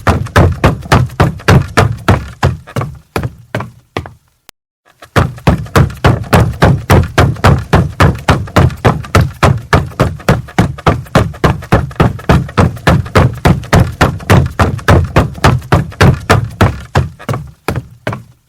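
Footsteps running on a wooden floor: heavy, deep thuds about four a second. They fade away about three seconds in, stop for about a second, then start again and fade out near the end.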